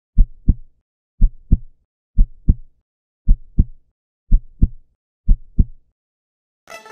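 Heartbeat sound effect: six deep lub-dub double thumps about a second apart. Music comes in near the end.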